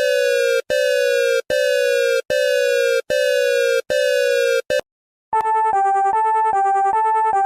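Electronic emergency alert tones. A slightly falling tone repeats about every three quarters of a second, then stops about five seconds in. After a brief silence, a different alert starts, alternating between two pitches a few times a second.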